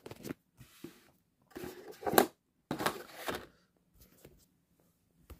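A paper booklet being pulled out of a boxset's card packaging and handled: several short bursts of paper and card rustling, the loudest about two seconds in, and a sharp click near the end.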